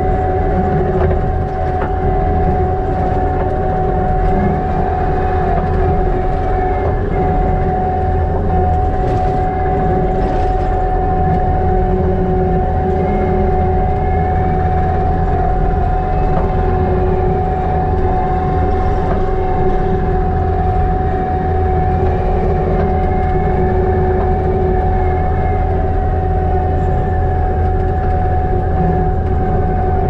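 Kubota SVL95-2s compact track loader's diesel engine running steadily under load with a steady whine over a heavy rumble, heard from inside the cab as the machine drives.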